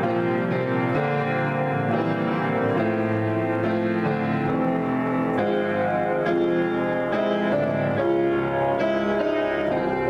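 Piano improvisation, played continuously: dense chords and many notes ringing over one another, changing every second or so.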